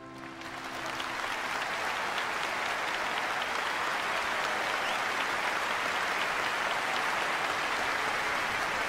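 Audience applauding: a dense, steady patter of many hands that swells in over the first second while the last note of orchestral music dies away underneath.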